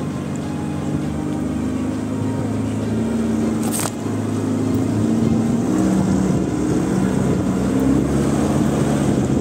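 Off-road 4x4 engine pulling at low speed over a rough, rocky track, its pitch shifting as the throttle changes, with one sharp knock about four seconds in.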